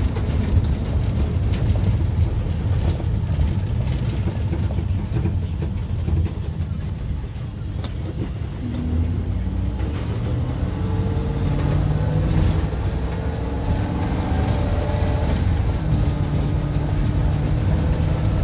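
Engine and road noise heard from inside a moving passenger van: a steady low rumble, with the engine's hum coming through more clearly in the second half.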